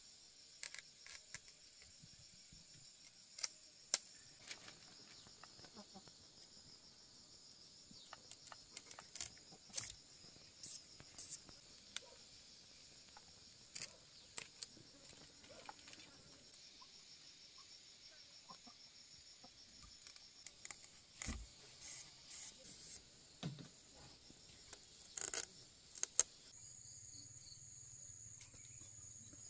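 Insects, crickets, chirring steadily and faintly in the background, with scattered sharp clicks and knocks from close-by handling, coming irregularly through the stretch.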